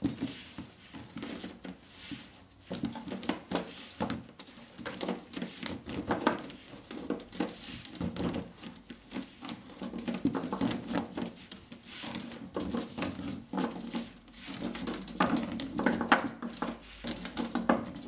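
A 17-foot steel phonograph mainspring being wound by hand into its spring barrel: the steel strip scrapes, rubs and clicks against its own coils and the barrel in an irregular run of small metallic sounds.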